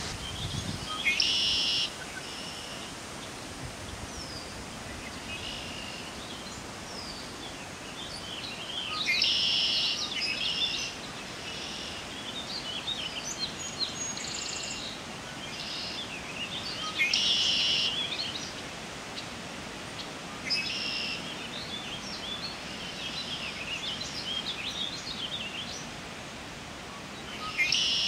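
Male red-winged blackbird singing its buzzy trilling song, repeated four times about eight seconds apart, with shorter chirps from other birds between the songs.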